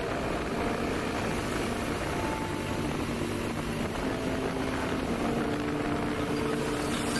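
Steady rumble of a vehicle driving along a road: engine, tyre and wind noise blended together, with no distinct events.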